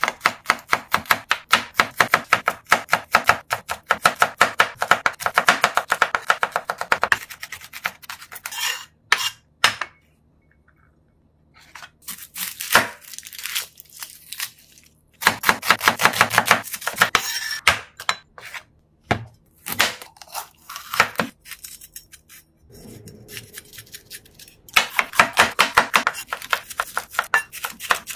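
Chef's knife chopping garlic, onion and red bell pepper on a bamboo cutting board: runs of quick, even blade strikes, several a second, broken by short pauses.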